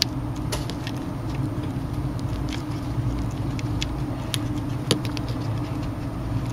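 A steady low hum throughout, with scattered small clicks and taps as the display's flex-cable connector is handled and pressed onto the phone's board. The sharpest click comes right at the start and another about five seconds in.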